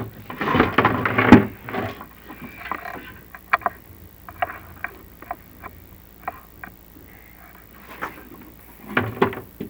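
Chimney inspection camera rig being handled as the camera is worked down a masonry flue: a run of short, separate clicks and taps, with a few louder knocks near the end.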